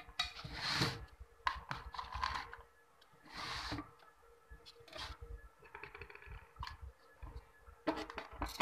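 A hand-built amplifier circuit board and its wires being picked up, moved and slid across a work mat: irregular scrapes, rustles and clicks with a few dull knocks, over a faint steady hum.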